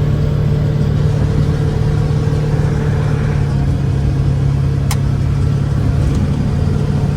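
A vehicle driving along with a steady engine hum and road noise. There is a single sharp click about five seconds in.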